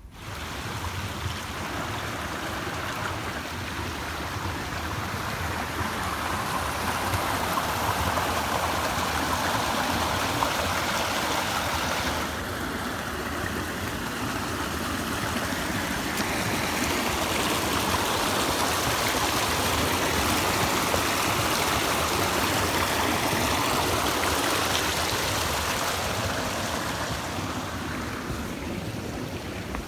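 Mountain stream flowing: a steady rush of water that changes slightly about twelve seconds in.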